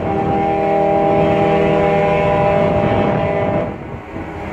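A ferry's horn sounding one long, steady blast of several tones at once, stopping a little under four seconds in.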